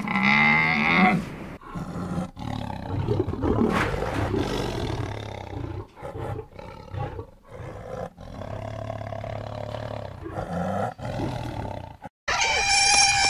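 Animal calls cut together from separate clips: mostly deep, rough roars from a large wild animal, each ending abruptly. A higher, pitched call comes in near the end.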